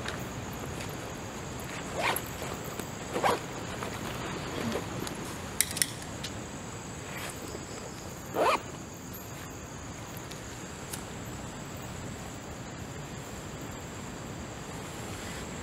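A steady, high-pitched insect trill, faint, with a few brief quiet sounds about two, three and eight seconds in.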